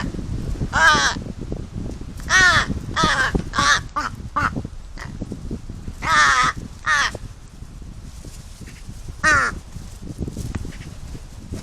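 Large-billed crows cawing: about eight hoarse caws, several in quick succession in the first seven seconds and one more later, over a low rumble of wind on the microphone.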